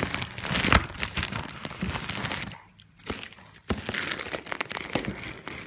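Plastic packaging crinkling and rustling as it is handled and pulled open, with a short lull about halfway through.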